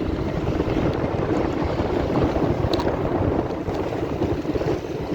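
Wind buffeting the microphone on a moving motorcycle, a steady rushing rumble with the engine and road noise underneath.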